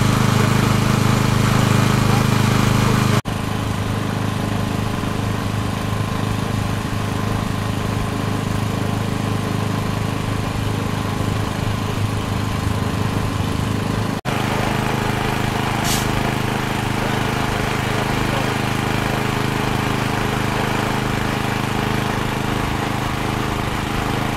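Fire engine engines running steadily, a low hum with several held tones; the sound changes abruptly twice, about three and fourteen seconds in. A short hiss about sixteen seconds in.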